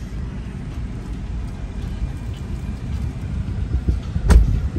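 Low rumble of a car rolling slowly, heard from inside the cabin, with a single sharp knock about four seconds in.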